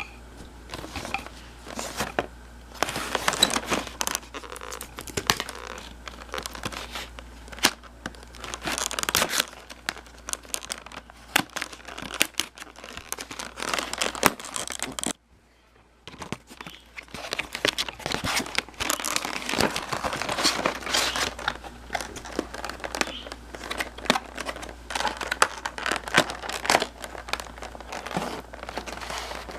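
A prepaid smartphone's retail box being opened and unpacked by hand: packaging crinkling and rustling, with tearing and irregular handling clicks. It breaks off briefly about halfway.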